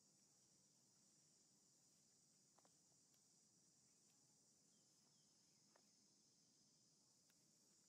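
Near silence: a faint, steady, high-pitched insect hum, with two faint clicks.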